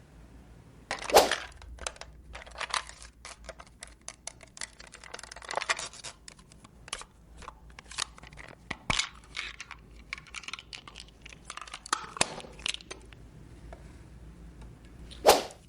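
Small plastic toy parts and packaging being handled: an uneven run of light clicks, taps and crinkling, with two louder rustling bursts about a second in and near the end.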